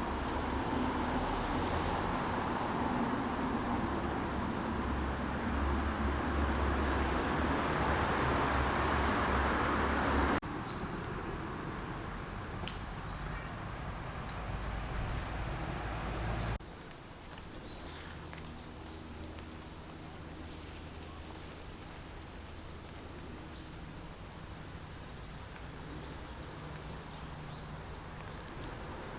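Outdoor ambience. A steady rushing noise cuts off abruptly about ten seconds in. A quieter background follows, with a short, high chirp repeating about one and a half times a second.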